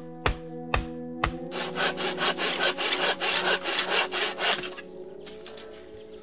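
Three hammer blows on wood, then a hand saw cutting a wooden plank with quick back-and-forth strokes for about three seconds before stopping, over soft background music with held tones.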